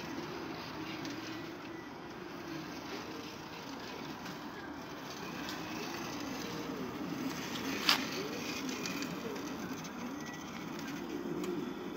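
Moving-head colour-wash lights running, their pan and tilt motors whining in short pitches that glide up and down as the heads swing. A single sharp click about eight seconds in.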